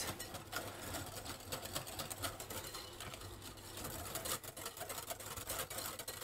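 Wire balloon whisk beating quickly in a glass bowl, its wires ticking rapidly against the glass as boiling milk is whisked into egg yolks and sugar to temper them for a crème anglaise.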